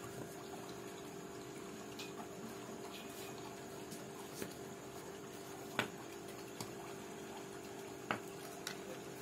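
A few light plastic clicks and taps from model-kit parts being handled and fitted, the sharpest a little before the middle, over a steady low hum and hiss.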